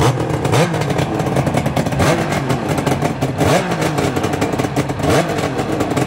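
Freshly overhauled Suzuki GT550 three-cylinder two-stroke engine running through Sugaya long mufflers, its revs blipped up and back down about four times. It runs smoothly, sounding healthy after the rebuild.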